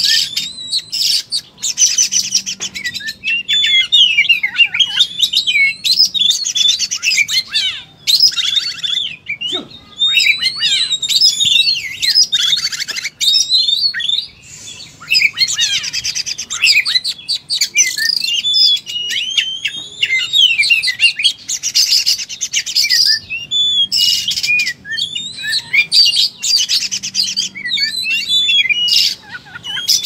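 Oriental magpie-robin (kacer) singing a long, unbroken song of varied whistled phrases that swoop up and down, broken every few seconds by fast buzzy rattles. This is the bird in full 'fighting' mode (tarung), pouring out its repertoire of song material.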